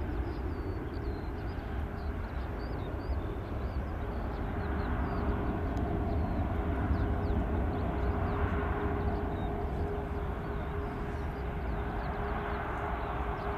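Four Rolls-Royce Trent 500 turbofans of an Airbus A340-600 running at taxi power: a steady roar with a deep rumble and a whine held at one pitch, swelling a little about halfway through.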